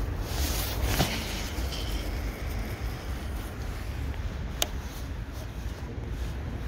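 Wind rumbling on the microphone, with two sharp clicks, one about a second in and one past four seconds in.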